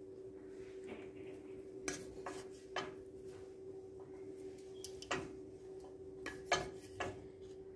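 Scattered light clicks and taps of dishes and utensils on a plate, about half a dozen, the sharpest around five and six and a half seconds in, over a faint steady hum.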